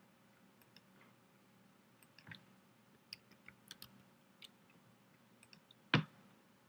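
Faint scattered clicks of a computer mouse and keyboard as a web form is filled in, with a quick run of about five keystrokes about three seconds in. One louder knock comes near the end.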